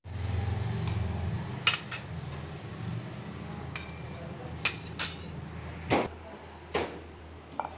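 A steel spoon clinking against a stainless steel mixer-grinder jar as whole spices are tipped in: several sharp, irregular clinks over a low steady hum.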